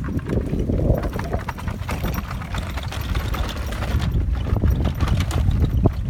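Wind buffeting the microphone with a steady low rumble, over a run of irregular clicks and knocks.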